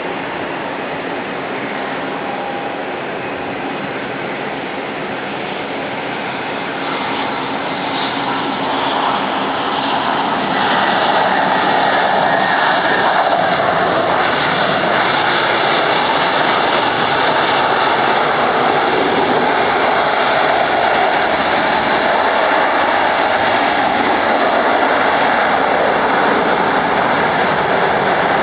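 Jet airliner engines: a steady roar with a high whine, growing louder over several seconds and then staying loud.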